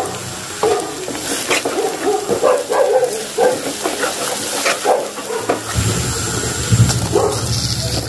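A dog barking in a run of short, quick barks and yips for about five seconds. About six seconds in, a steady frying sizzle starts up as the spiced onion masala and eel cook in oil in the pan.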